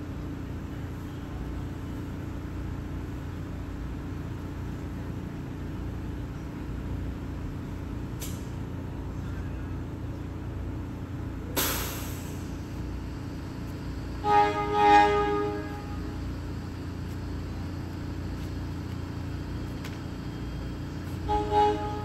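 PATH train horn sounding a chord: two blasts about two-thirds of the way in and two short toots near the end, over a steady low rumble. A brief knock comes about halfway through.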